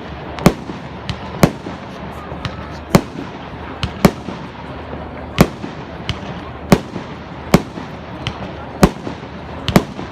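Fireworks going off: a dozen or so sharp bangs at uneven intervals, roughly one a second, over a steady background murmur.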